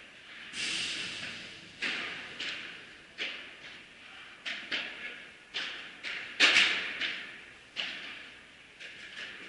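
Padel ball struck by rackets and bouncing off the court and glass walls: a run of sharp pops every half second to a second, each ringing on in the hall's echo, the loudest about six and a half seconds in.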